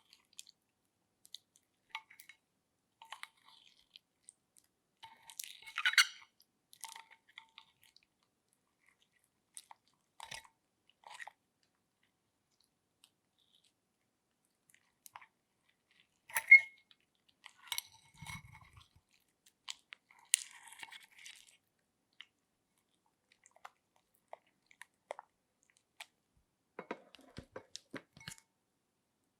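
Slime being handled: scattered short sticky crackles, clicks and squelches with quiet gaps between, the loudest about six, sixteen and twenty seconds in.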